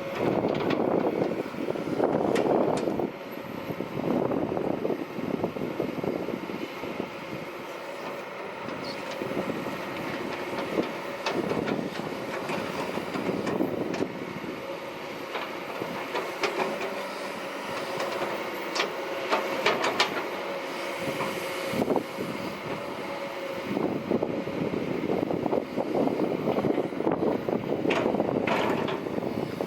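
Kobelco SK200-8 hydraulic excavator working: the diesel engine runs under load, surging in waves, with a steady hydraulic whine. Sharp metallic knocks and clanks come several times, bunched about a third, two thirds and near the end of the way through.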